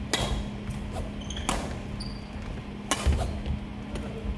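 Badminton rackets hitting a shuttlecock in a doubles rally: three sharp strikes about a second and a half apart, with short high squeaks from shoes on the wooden gym floor between them and a steady low hum.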